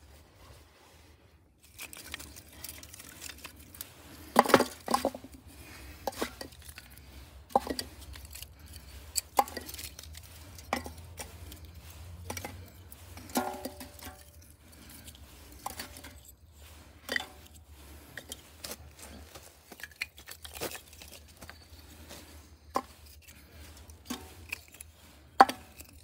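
Split wooden kindling sticks being dropped and set one by one into a soot-blackened metal bucket: irregular wooden clacks and knocks against the metal, starting about two seconds in, one about halfway through with a short metallic ring.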